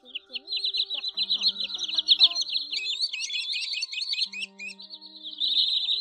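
Sandpipers calling in a dense, fast run of short high notes, several a second and overlapping, like a calling flock; a second run of higher, rising notes joins in the middle. It is a shorebird lure recording, such as is used to call flocks down to night nets, laid over soft background music.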